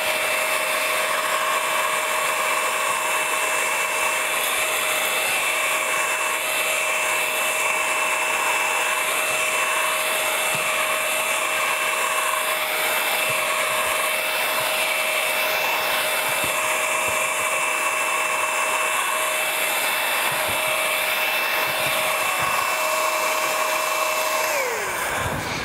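Wel-Bilt electric heat gun running steadily: a fan rush with a steady two-note whine, from a gun the owner says has made a funny sound since he dropped it. Near the end it is switched off and the whine slides down and stops.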